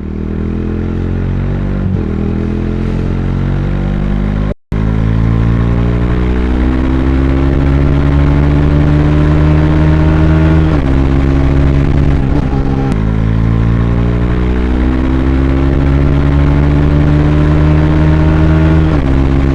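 Bajaj Dominar 400's single-cylinder engine accelerating through the gears: the engine pitch climbs steadily and drops back at each upshift, twice clearly. The sound cuts out for a moment about four and a half seconds in.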